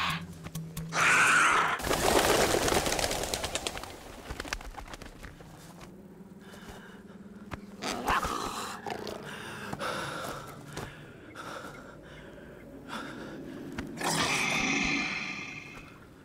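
Film sound-effect snarls and roars of a black panther, with a loud rushing noise from about two to four seconds in.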